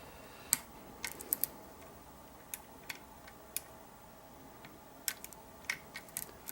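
Small, irregular metallic clicks of a lock pick probing the sliders of a Kwikset Smartkey deadbolt under tension, feeling for the one that is bound. The clicks come singly and in small clusters.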